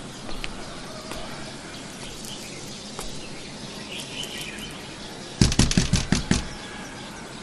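Knuckles knocking on a wooden front door: a quick run of about six knocks about five and a half seconds in, over faint outdoor background with bird chirps.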